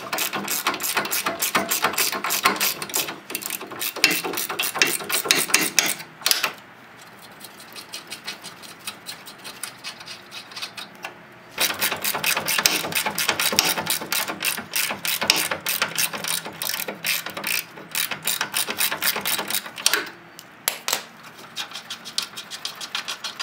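Hand ratchet with a 21 mm socket clicking rapidly as it backs off rusty bumper-mount bolts under the truck. Two long spells of fast ratcheting, with a quieter stretch of slower, fainter clicks in between and a few scattered clicks near the end.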